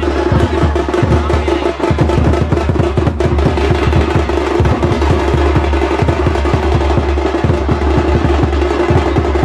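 Fast, dense drumming with heavy low beats, and a steady held note sounding above it throughout.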